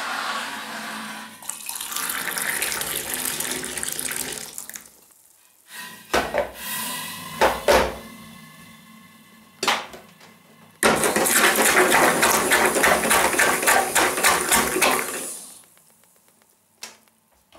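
Water running from a kitchen tap in two stretches of steady rushing, with a few sharp clinks of dishware between them, some of them ringing briefly.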